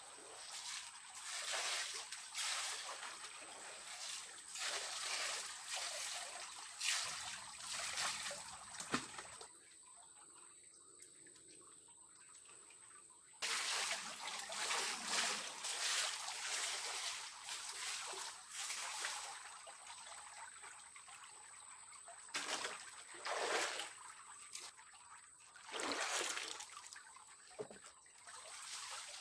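Water splashing and trickling in uneven spurts, with a lull partway through, over a steady high-pitched insect call.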